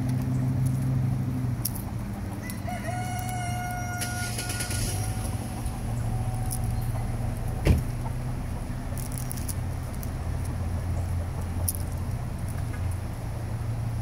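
A rooster crows once, a long drawn-out call starting about two and a half seconds in and trailing off by about seven seconds. A steady low hum runs underneath, and a single sharp knock a little before eight seconds in is the loudest moment.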